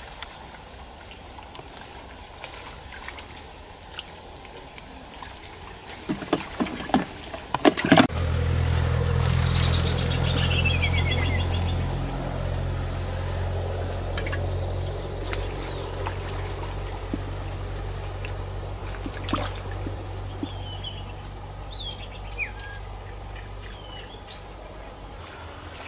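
A low, steady engine hum sets in about a third of the way through, after a few knocks and clicks, and runs on to near the end, with birds chirping over it.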